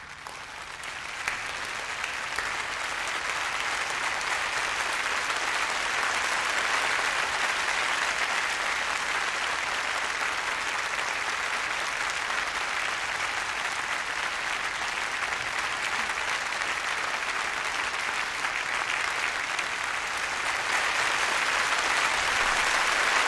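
Audience applause: many people clapping together, swelling over the first few seconds and then sustained.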